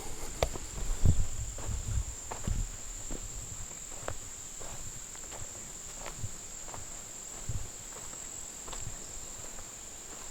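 Footsteps of a person walking on a forest trail, a thump roughly every half second to second, heaviest in the first few seconds, over insects calling with a steady high-pitched buzz.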